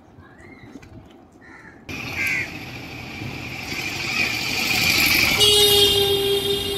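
A few bird calls on a quiet street, then at about two seconds an abrupt jump to louder road traffic noise that keeps growing. From about five and a half seconds a vehicle horn sounds one long, steady note.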